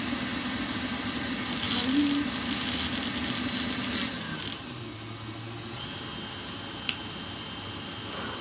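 Electric mixer running steadily, beating eggs and sugar toward a fluffy foam. About four and a half seconds in its sound drops and changes, and a single sharp click comes near seven seconds.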